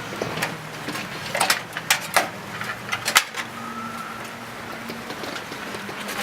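Scattered clicks and knocks of a desktop computer system unit's metal case and parts being handled during disassembly, over a steady low hum.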